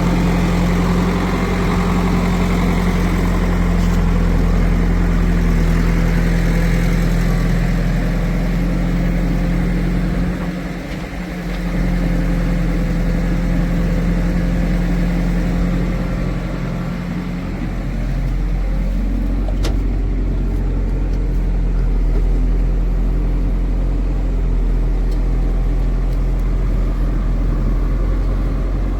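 Heavy farm-machinery diesel engine running steadily, with its level dipping briefly about ten seconds in and again about six seconds later.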